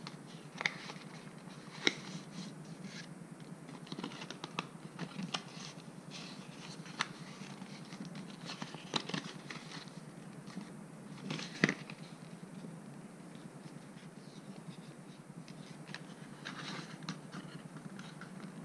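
Cardboard retail package being handled and pried open by hand: light paper rustling with scattered sharp clicks and taps, the loudest a little under twelve seconds in.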